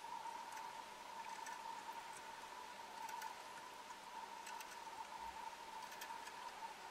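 Faint, steady high-pitched whine with scattered light ticks: the equipment noise of the underwater camera rig.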